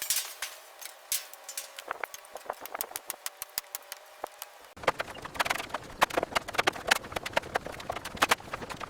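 A fast, irregular clatter of sharp clicks and knocks, several a second, that turns fuller and denser about five seconds in.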